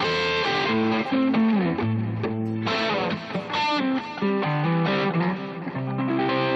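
Band music from a rehearsal-room recording, with electric guitar to the fore, moving through a run of changing notes and chords. It settles on a held chord near the end.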